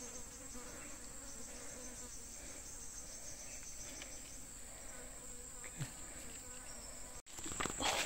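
A steady, high-pitched drone of insects in forest undergrowth. Near the end, footsteps crunching on dry leaf litter and twigs.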